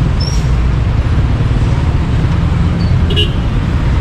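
Rush-hour road traffic: a steady low rumble of vehicle engines and road noise, with a brief high tone about three seconds in.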